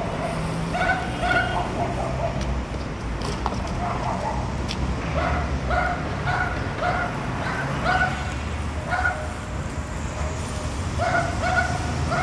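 A dog barking repeatedly in runs, about two barks a second, over a low steady rumble.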